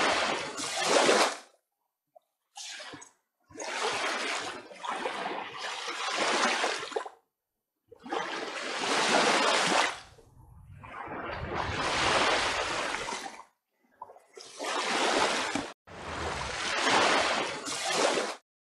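Small waves washing onto a sandy beach, heard as a series of swells a second to a few seconds long, separated by abrupt silent gaps.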